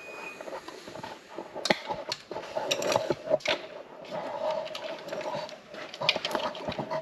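Wiring-harness connectors and wires being handled and pushed together in an engine bay: irregular clicks, taps and rattles, with a steady hum behind them from about two and a half seconds in.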